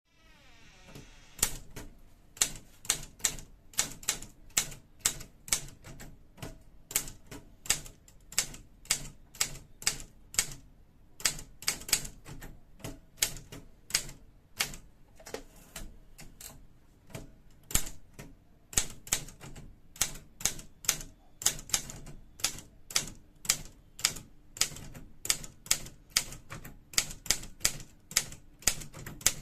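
Typewriter keys striking on a Triumph Gabriele 10 typewriter, at a steady pace of about two to three keystrokes a second. There is a brief pause in the middle, followed by a single loud strike.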